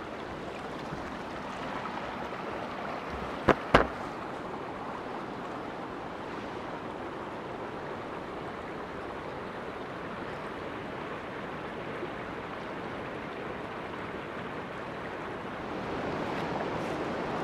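Steady rushing of a flowing creek, with two sharp knocks close together about three and a half seconds in.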